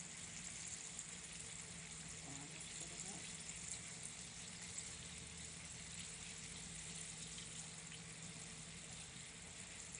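Floured chicken pieces frying in hot oil in a pot: a steady sizzle with scattered small crackles.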